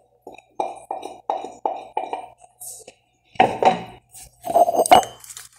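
Kitchen dishes and utensils knocking and clinking against a cooking pot while grated lime zest is tipped from a plate into rice pudding. A quick run of about six light taps comes first, then two louder clattering knocks near the end, the last with a sharp click.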